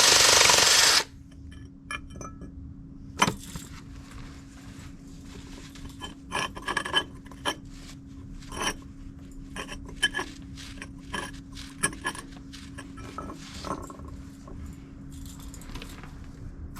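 A power tool runs for about the first second, then cuts off. After that come scattered clinks, taps and scrapes of tools and metal parts being handled, over a faint steady hum.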